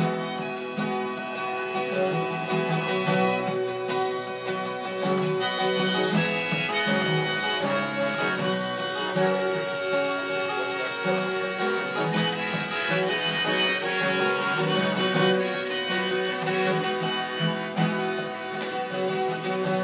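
Harmonica in a neck rack and strummed acoustic guitar playing together in an instrumental passage. The harmonica holds long notes over a steady strum.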